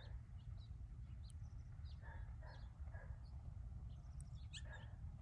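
Faint outdoor ambience: a steady low wind rumble on the microphone, small birds chirping in short high notes scattered throughout, and a few brief distant calls around the middle and again near the end.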